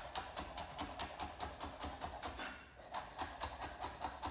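Kitchen knife chopping kale, stems included, finely on a cutting board: quick even strokes at about four a second, with a short break a little past the middle before the chopping resumes.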